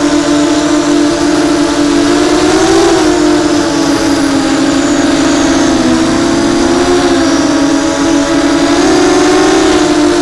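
Brushless motors and 6-inch propellers of an FPV racing quadcopter running in flight, heard through the onboard action camera. It is a steady buzzing drone whose pitch wavers up and down, rising briefly about three seconds in and dipping around six seconds.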